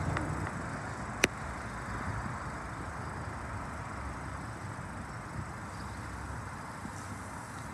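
Steady low outdoor background rumble, with one sharp click a little over a second in.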